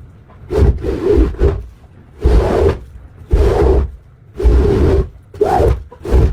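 Repeated scrubbing strokes on a rug, about one a second, each a short rough rub lasting around half a second, with brief pauses between them.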